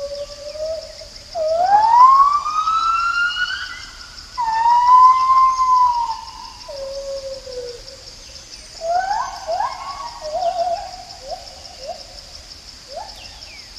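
Gibbon song: long, pure hooting notes, first a held low note, then a long rising swoop, an arched note and a falling note, then a run of short, quick rising notes near the end.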